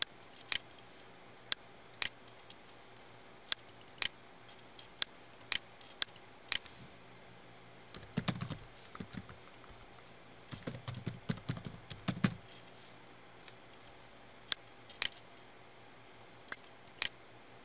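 Typing on a computer keyboard in two short runs, about eight and eleven seconds in, as a username and password are entered. Single sharp mouse clicks come every second or so before and after.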